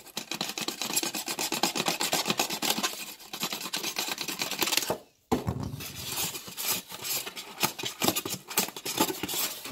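Utility knife blade cutting a shallow groove into a styrofoam cooler lid: a run of short, rasping, scraping strokes of blade on foam, broken by a brief stop about halfway through.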